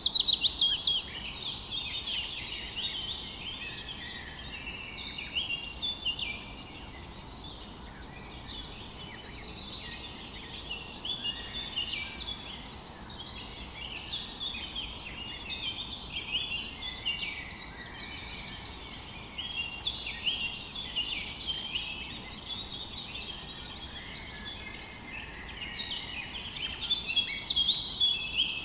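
A chorus of several small songbirds singing at once, quick chirps and trills overlapping continuously over a faint steady background hiss, with a louder burst of song at the start and again near the end.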